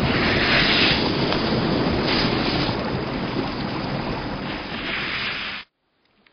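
Rushing, wind-like whoosh that swells a few times and cuts off abruptly about five and a half seconds in.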